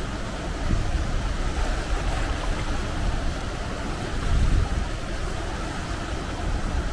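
Steady rush of whitewater in the rapids of a glacier-melt river.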